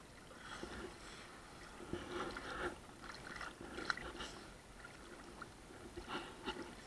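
Small waves lapping and sloshing at a camera held at the waterline: faint, irregular little splashes over a low wash of water noise.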